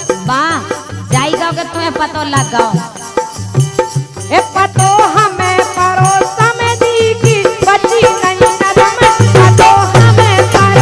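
Bundeli wedding folk song (gari): a woman singing over a steady shaker-rattle rhythm and a drum beat, the drum growing louder near the end.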